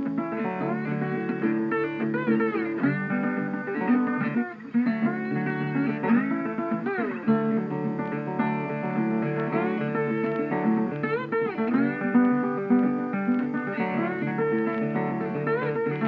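Background music: plucked acoustic guitar with sliding, bending notes in a bluesy style.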